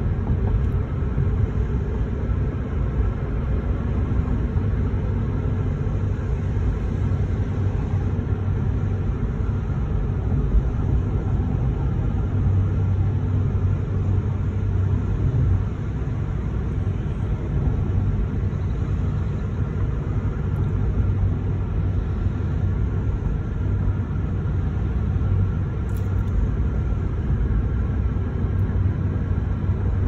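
Steady low vehicle rumble, heard from inside a car.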